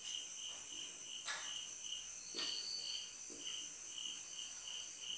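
Insect chirping steadily in the background, a pulsing high note about three times a second. A few short scratches of a marker pen on a whiteboard come through as writing strokes.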